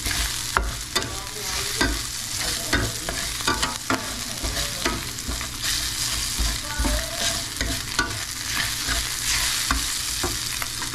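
Chopped garlic sizzling in oil in a stainless steel frying pan, with a spatula clicking and scraping against the pan as it is stirred.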